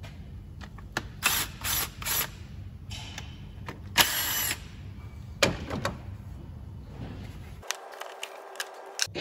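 Cordless 3/8-inch battery ratchet spinning 10 mm nuts off an engine's plastic top cover in short motor bursts: three quick bursts about a second in and a longer one about four seconds in. After that come scattered clicks and knocks from the cover being handled.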